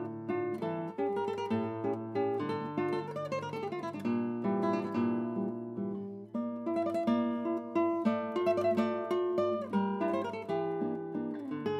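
Background music on acoustic guitar: a continuous run of plucked notes and light strums.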